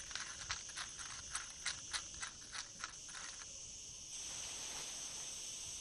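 A necklace shaken so that its cluster of hard pendant beads rattles in a quick, irregular run of clicks, which stops about three and a half seconds in. A faint steady hiss follows.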